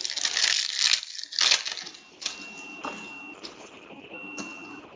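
A foil trading-card pack crinkling and tearing open in the first second or so, then a few light clicks and rustles as the cards are handled.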